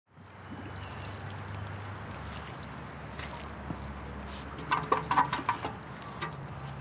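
Water pouring and trickling from a plastic watering can onto a garden bed. About five seconds in, a short cluster of sharp clicks and taps stands out as the loudest sound.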